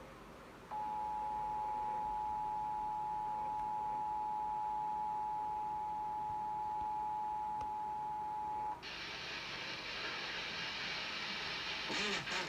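Emergency Alert System two-tone attention signal, the paired 853 and 960 Hz tones held steady for about eight seconds and starting just under a second in. It cuts off abruptly into a steady hiss of broadcast static that runs on until the announcement begins.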